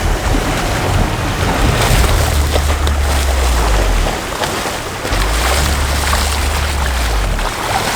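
Ocean surf washing on the beach, a steady rushing hiss, with wind buffeting the microphone in two long low rumbles.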